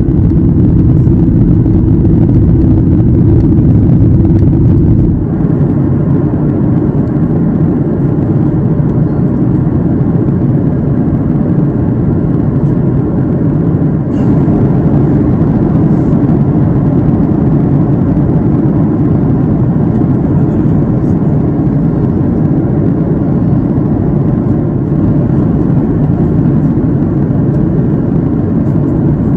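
Steady cabin noise of a Boeing 737-8 MAX in flight, heard from inside the economy cabin: a deep, even rumble of its CFM LEAP-1B turbofans mixed with airflow. The level drops a little about five seconds in.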